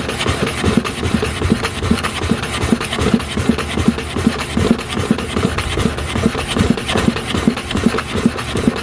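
Clipper blade being rubbed back and forth on a sharpening stone coated with oiled sharpening compound: a steady run of quick, even gritty scraping strokes.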